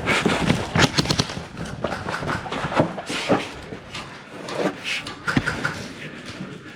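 Airsoft guns firing: a series of sharp cracks, with a quick run of shots about a second in, thinning out in the second half.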